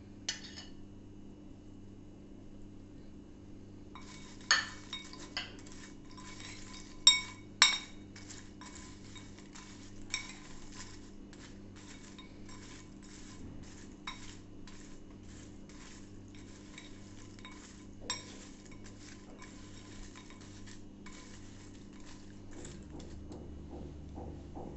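Metal spoon tossing crisp deep-fried penne pasta in a glass bowl: one clink near the start, then a long stretch of dense scraping and rattling with several sharp clinks of spoon on glass.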